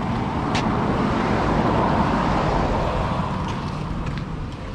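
A car passing by on the road: its tyre and engine noise swells to a peak about two seconds in, then fades away.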